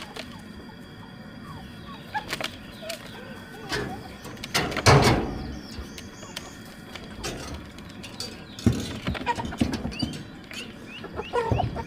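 Scattered knocks and clatter of work, with one louder rustling clatter about five seconds in, while birds give short chirps, mostly in the second half.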